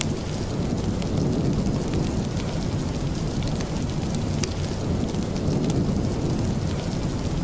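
Steady rain: a dense, even rushing hiss heavy in the low end, with scattered sharp ticks throughout.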